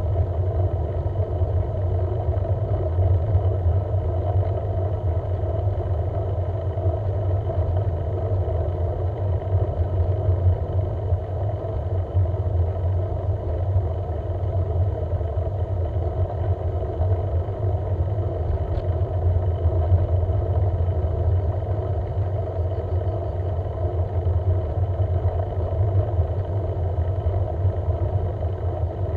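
Steady low rumble of travel along a road, unchanging in level throughout.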